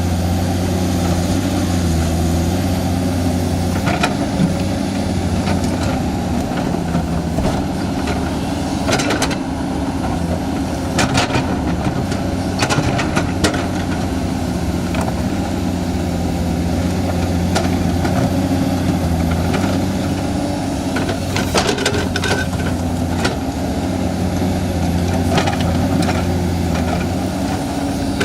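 Excavator's diesel engine running steadily under work, with scattered sharp knocks and clanks as it digs and loads earth.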